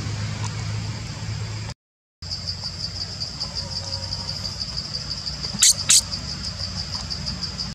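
Insects chirring: a steady, fast-pulsing high buzz, over a low rumble, cut off briefly about two seconds in. Near the end, two short, sharp high-pitched chirps come a third of a second apart, the loudest sounds.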